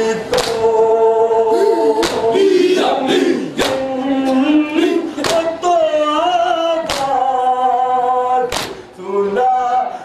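Group of men chanting a nauha, a Shia mourning lament, in unison, with a sharp strike about every second and a half from the matam, hands beaten on chests in time with the chant.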